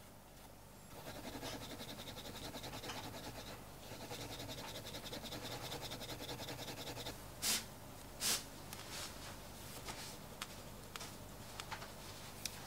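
Wooden edge slicker rubbed quickly back and forth along the gum-coated edge of a strip of vegetable-tanned bridle leather, burnishing it smooth. It makes a fast, even scratchy rubbing, with two sharp clicks a little past the middle.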